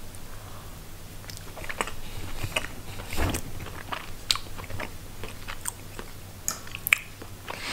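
A person chewing a mouthful of canned sprats in oil, with irregular wet clicks and smacks of the mouth.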